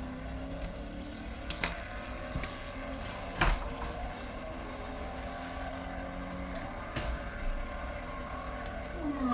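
Race car engines from a Le Mans test-day recording playing in the background, their pitch slowly rising and falling as the cars run. A few sharp clicks come through over it, the loudest about three and a half seconds in.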